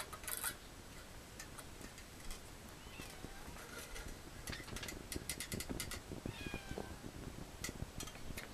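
Pellet fire crackling in a gasifying stove, with a burst of sharp crackles about halfway and a few more near the end, over a low rumble. A few short animal calls with a falling pitch, about 3 s in and again at about 6.5 s.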